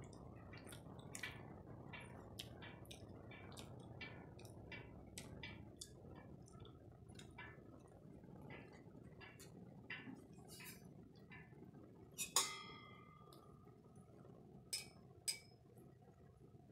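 Faint low hum with many small irregular clicks and taps, and one sharp clink that rings on briefly about twelve seconds in, followed by two more clicks near the end.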